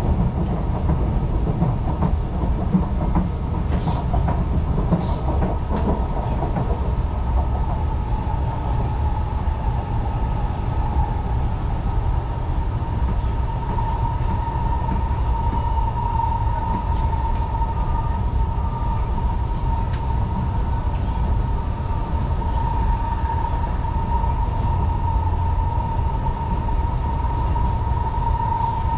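Singapore MRT train running between stations, heard from inside the carriage: a continuous low rumble with a steady high whine that rises slightly in pitch over the first dozen seconds and then holds. Two short sharp clicks about four and five seconds in.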